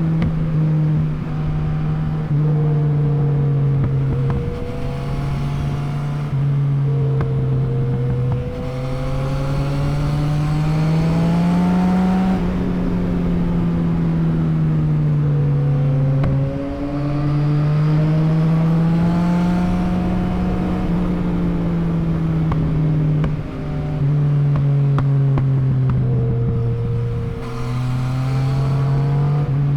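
Yamaha MT-09's inline three-cylinder engine running under way. Its pitch climbs and falls with the throttle, and drops in a sudden step with a brief dip in loudness at about half a dozen gear changes.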